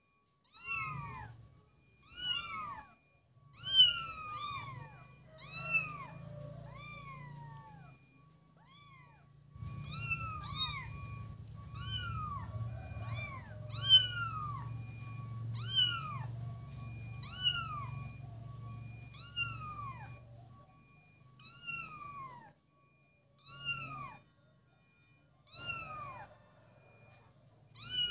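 A kitten meowing over and over, short high calls that each slide down in pitch, about one a second.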